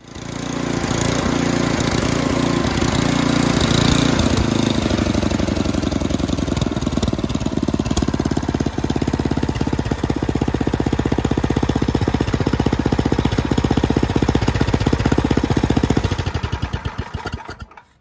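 Tecumseh single-cylinder snowblower engine running and throttled down to idle. About a second before the end it sputters and stops: the repaired coil kill wire now grounds the ignition when the throttle is idled all the way down.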